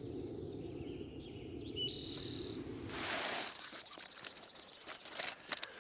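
Outdoor ambience with birds calling: a steady low background noise, a short high whistled note about two seconds in, then after a change a high steady trill with a light hiss. Near the end a few sharp clicks and rattles of tent poles and gear being handled.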